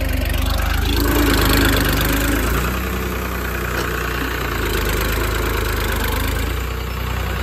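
New Holland 3630 tractor's three-cylinder diesel engine running steadily as the tractor drives through wet mud pulling a tillage implement. It is a little louder in the first couple of seconds.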